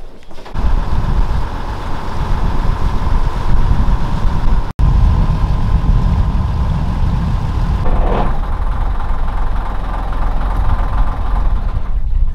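Longtail boat engine running steadily at cruising speed, a loud low rumble with a steady hum on top, starting about half a second in.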